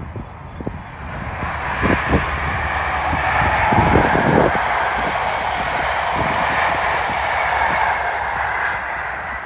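High Speed Train (InterCity 125) passing at speed: a rush of wheels on rail that builds over the first few seconds, is loudest about four seconds in, then slowly fades.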